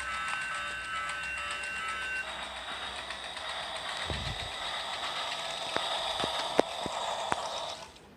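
Toy train: about two seconds of steady pulsing electronic tones, then its small motor whirring with a thin whine and a few sharp clicks, stopping abruptly near the end.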